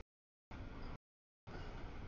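Rolling rumble of a passing CSX double-stack container freight train, heard in short pieces: the audio drops out to dead silence twice, for about half a second each time.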